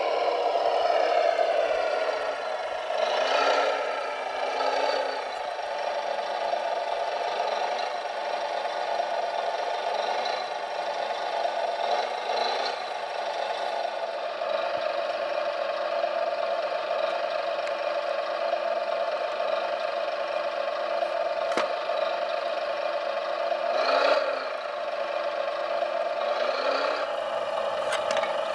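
A radio-controlled Volvo L250 wheel loader's electric drive and hydraulic pump running with a steady whine. The whine dips in pitch and recovers several times as the fork moves the weight.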